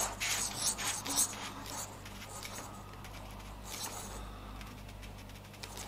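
Faint scraping and rubbing of plastic as a Singularity Computers Protium acrylic reservoir is twisted tight by hand onto its pump top, seating the thread and O-ring, mostly in the first two seconds, over a low steady hum.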